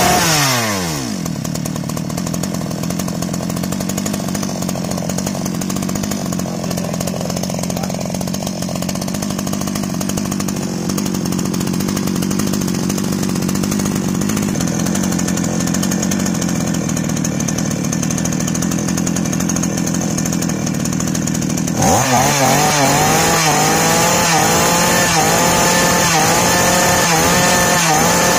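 Newly assembled two-stroke chainsaws on a test run. The first drops from high revs to a steady idle about a second in. About 22 seconds in the sound switches abruptly to a second saw running louder, its pitch dipping and recovering in a regular wobble.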